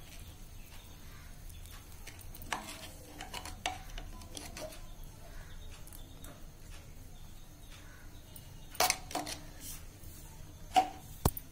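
A few scattered clinks and taps of kitchen utensils against a pan as ghee is put on baked litti, the loudest few near the end.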